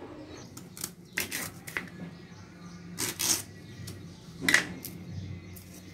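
Kitchen knife chopping through fresh drumsticks (moringa pods) onto a plastic cutting board: a few sharp, irregular cuts, the loudest about three and four and a half seconds in.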